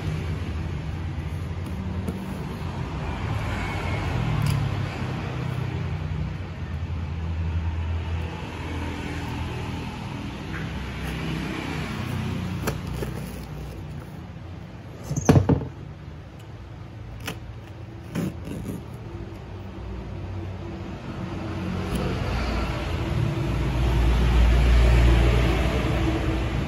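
Low, uneven rumble like road traffic going past, swelling near the end, with one brief sharp sound falling in pitch about halfway through and a few faint clicks after it.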